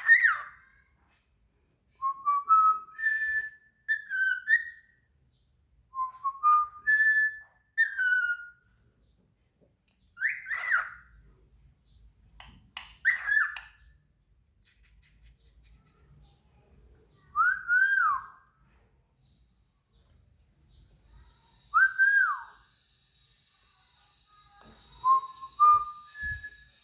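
A songbird singing loud, clear whistled phrases: some are rising runs of three or four notes, others single slurred whistles that swoop up and fall away, each about a second long with short pauses between.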